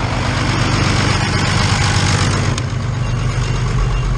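Diesel farm tractor engine idling steadily, heard up close, with a few short high beeps near the end.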